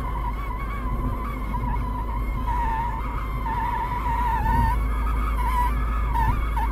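A whistle wavering around one pitch inside a moving Smart Fortwo, over steady road and engine rumble: air from the ventilation escaping past the top edge of a glass pane that is not sealed, which the mechanics take for a leaking, loose pane.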